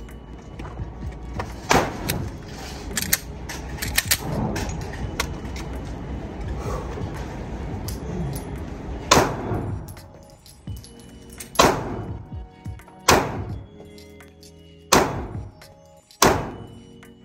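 Taurus GX4 Carry 9 mm pistol fired at an indoor range: five sharp shots in the second half, one to two and a half seconds apart, each with a short reverberant tail. Fainter sharp cracks and clinks come earlier, with background music running underneath.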